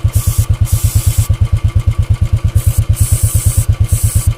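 Royal Enfield Classic's single-cylinder engine running with a steady, rapid thump, in first gear with the rear chain turning. Over it, an aerosol chain cleaner hisses in about five short sprays onto the chain.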